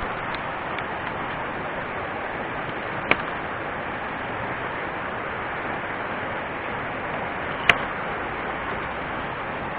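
Steady rushing of a mountain stream, with two sharp clicks, about three and about eight seconds in.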